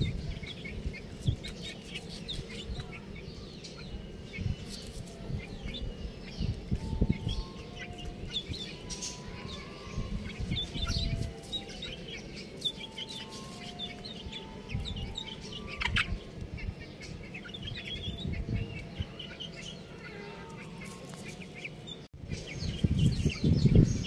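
A group of young chicks peeping in many short, high, overlapping calls, with low rumbling and thumps underneath.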